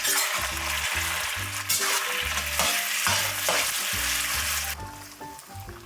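Vegetables dropped into hot oil in a stir-fry pan, sizzling loudly as soon as they hit. The sizzle holds for nearly five seconds, then dies down. The oil is a little less hot than the cook would normally let it get.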